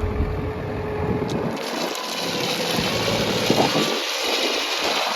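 New Holland LB75B backhoe loader's diesel engine running under load while the machine works its hydraulics.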